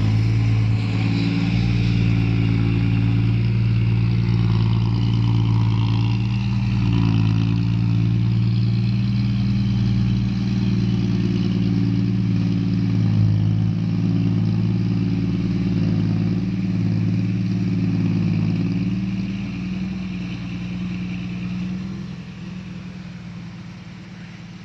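Heavy vehicle engine, tractor or truck, running steadily at constant speed, fading away over the last few seconds.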